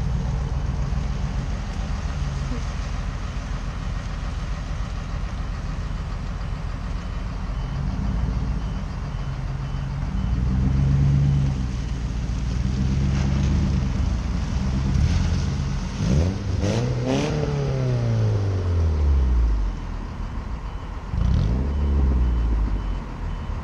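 A vehicle engine running steadily, then revved up and let back down twice near the end.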